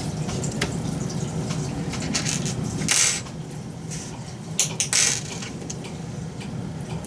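Small metal parts and a hand tool being handled: scattered clicks and clinks, with two short loud scraping rattles about three and five seconds in, over a steady low hum.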